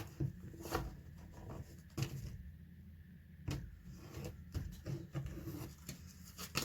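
Tarot cards being shuffled and handled: a run of irregular soft flicks and taps.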